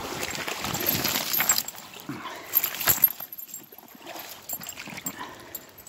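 Rustling and knocking of a handheld camera being moved about, with river stones clicking and crunching underfoot on a cobble bank; busiest for the first three seconds, then quieter.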